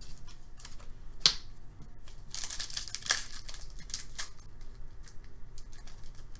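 Foil wrapper of a hockey trading-card pack crinkling and tearing as it is opened by hand, in a run of small crackles and clicks with one sharp click about a second in.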